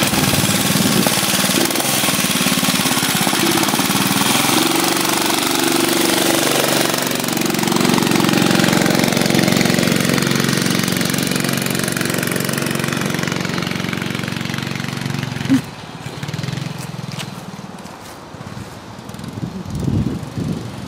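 The small single-cylinder engine of a 1969 Rupp Roadster mini bike runs, just started, its pitch rising and falling as it is ridden off. About 15 seconds in there is one short sharp crack, and then the engine is quieter and uneven as the bike moves away.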